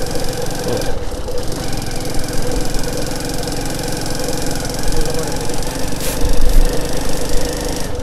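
Motorcycle engine running steadily while the bike rides over a rough off-road dirt track, with a louder low rumble about six seconds in.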